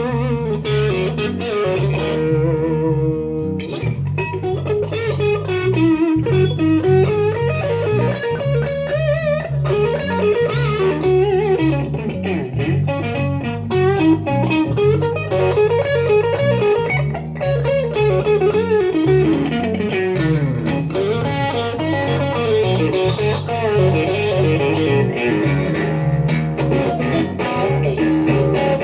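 Live blues-rock instrumental: an electric guitar plays a lead line full of bent notes over a repeating electric bass riff.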